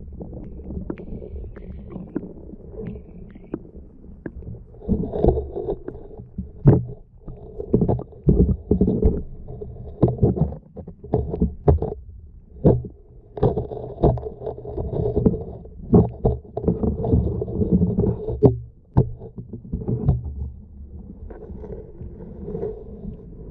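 Muffled underwater sound picked up through a GoPro's waterproof housing: a low rumble of moving water with irregular knocks and swishes, busiest in the middle and calmer near the start and end.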